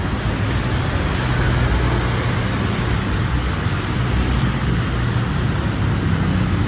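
Steady traffic noise from a busy multi-lane city road: cars, vans and motorcycles running past in a continuous rumble.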